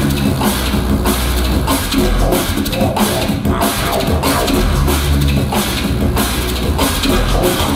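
Beatboxed drum and bass: vocal drums and a heavy bass line layered live through looping and effects gear into one loud, continuous beat.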